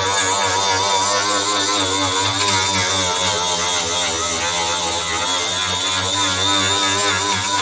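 Electric angle grinder running steadily while grinding body filler and paint off a car panel down to bare metal, a loud whine whose pitch wavers slightly as the disc is worked against the surface.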